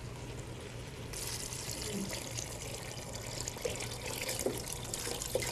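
Vegetable broth poured from a stainless steel pan into a pot of chowder: a steady splashing pour that starts about a second in and keeps going.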